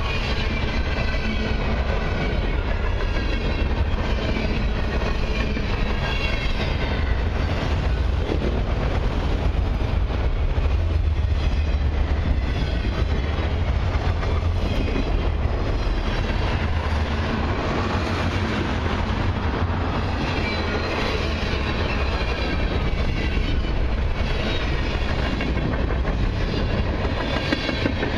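Long freight train rolling past at speed: covered hoppers, autorack cars and tank cars, their wheels rumbling and clicking steadily over the rails. A faint wavering high whine comes and goes over the rumble.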